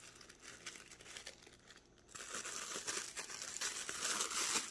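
Plastic bubble-wrap pouch and white tissue paper crinkling as they are handled and pulled open to unwrap a bangle bracelet. It is fainter at first, then louder and busier from about halfway through.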